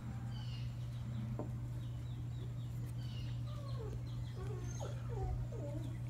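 Birds calling: short high chirps throughout and, in the second half, a run of lower, wavering calls, over a steady low hum.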